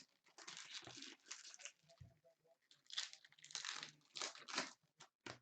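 Foil wrappers of trading card packs crinkling and tearing as they are handled and opened, in irregular bursts.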